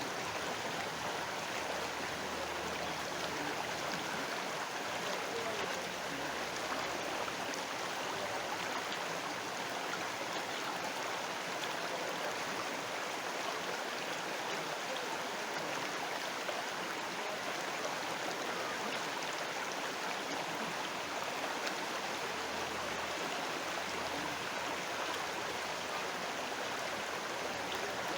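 River water flowing, a continuous, even rush of moving water.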